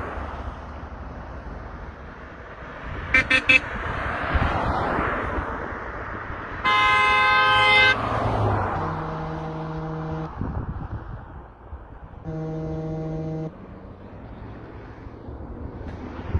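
Car horns honking: three quick toots about three seconds in, then a loud long blast, followed by two longer, lower-pitched honks from a different horn. Under them runs the steady rush of road and wind noise from a moving car.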